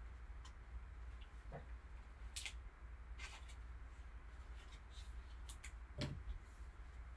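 Trading cards being handled: faint scattered clicks and rustles, with a slightly louder click about six seconds in, over a low steady hum.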